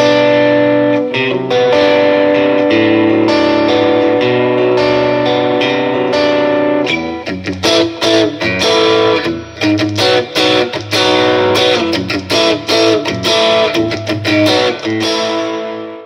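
G&L Legacy electric guitar with single-coil pickups, played through a Marshall amp: ringing chords for the first several seconds, then choppier, clipped notes and chord stabs from about seven seconds in, cutting off abruptly at the end.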